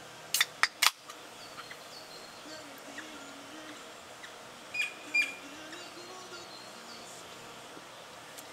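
Three sharp clicks in quick succession near the start, then faint short high chirps repeating over a steady hiss, with two brief clinks about five seconds in.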